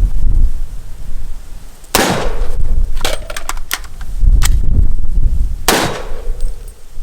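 Two shots from a SIG Sauer MCX rifle, about three and a half seconds apart, each with a short echoing tail. Between them comes a quick series of sharp metallic clicks.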